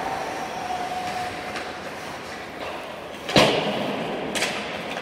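Ice hockey rink ambience with a long held call in the first couple of seconds, then one sharp, loud bang of something striking the rink boards about three and a half seconds in, and a lighter knock about a second later.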